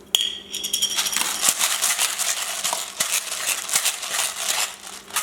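Rapid, dry rattling and clicking as pepper is added to the dressing from its container, with a short squeak at the start.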